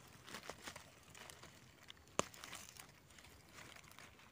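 Faint rustling and crackling of dry leaf litter as a gloved hand picks mushrooms from the forest floor, with one sharp click about halfway through.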